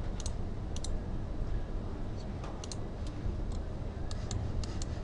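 Computer mouse button clicks: a series of sharp clicks, several in quick pairs, over a steady low hum.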